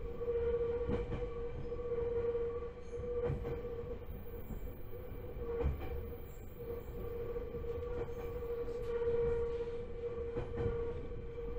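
Joshin Electric Railway 7000-series electric train running, heard from inside the car: a steady mid-pitched hum over the low rumble of the wheels, with scattered knocks from the wheels on the track.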